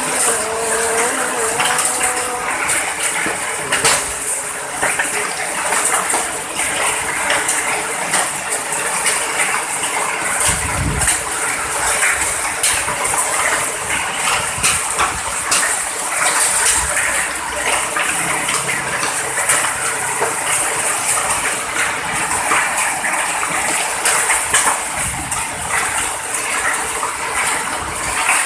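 Hailstorm: heavy rain and hail pelting down steadily, a dense hiss thick with the clatter of countless separate hailstone hits, with a brief low rumble about eleven seconds in.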